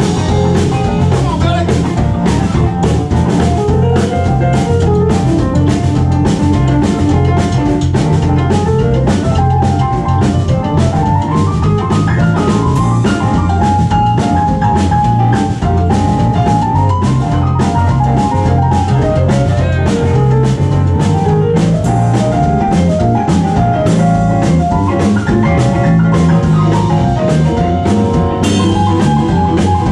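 Live band playing an instrumental passage of a blues song: a steady drum-kit beat and bass under a melodic lead line.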